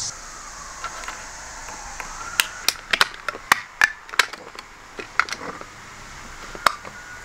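Irregular sharp clicks and small taps of hands handling and fitting a clear plastic inline fuse holder with brass terminal studs, about a dozen in a few seconds.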